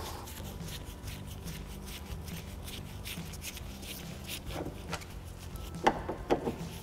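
Faint clicks and ticks of a Phillips screwdriver working the screws out of a car door latch, a few of them in the second half, over a low steady hum.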